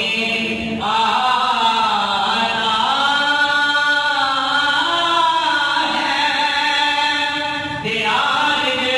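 A man reciting a naat (Urdu devotional poem) unaccompanied into a handheld microphone, in long, held melodic phrases. The phrases break about a second in and again near the end.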